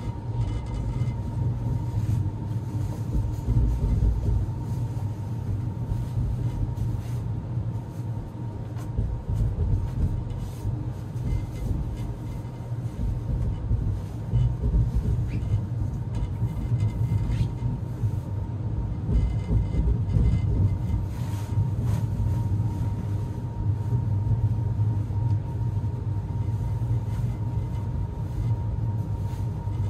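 Sleeper carriage of an overnight express train running along the track, heard from inside the compartment: a continuous low rumble that swells and eases, with a steady faint hum above it.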